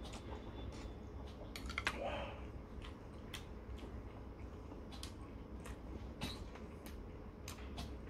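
A man chewing a mouthful of noodles: soft, irregular wet smacks and clicks of the mouth and lips, with a brief louder sound about two seconds in.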